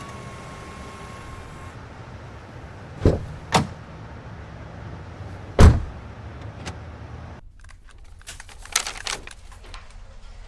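Three sharp knocks over a steady low hum, then, after an abrupt change in background, a quick run of light clicks and rattling.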